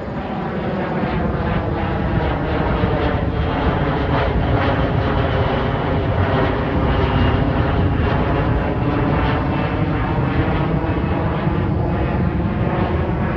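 Twin-engine jet airliner climbing out after takeoff, its engines giving a loud steady roar that swells over the first couple of seconds, with slowly shifting whining tones through it.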